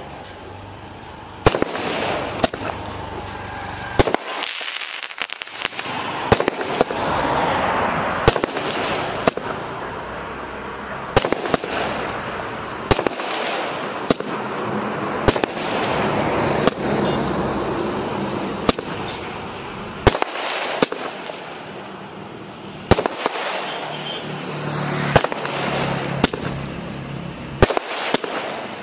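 Aerial fireworks going off in a long series: sharp bangs at irregular intervals, with crackling between them.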